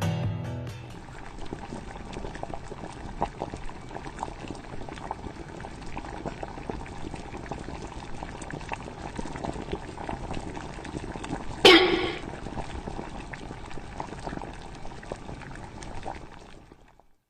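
Liquid bubbling steadily with a fine crackle, like water at a boil. About twelve seconds in there is one short, loud sound that rises in pitch. The bubbling stops just before the end.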